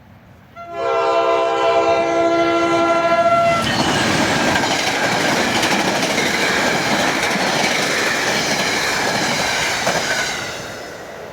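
A New Jersey Transit passenger train's air horn sounds one steady chord for about three seconds. Then the train rushes past, its wheels clattering over the rails, and the noise fades near the end.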